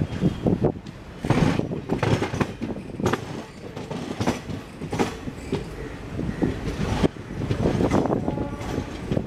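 Wheels of an Indian Railways express train's coaches running over points and rail joints, an ongoing clatter with irregular knocks, heard from the open doorway of a moving coach.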